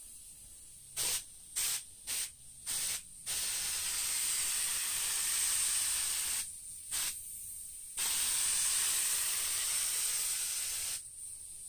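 Central Pneumatic mini detail spray gun spraying a thinned polyurethane and mineral-spirits mix with compressed air. It gives four short bursts of hiss in the first three seconds, then two long trigger pulls of steady hiss of about three seconds each, with a brief burst between them.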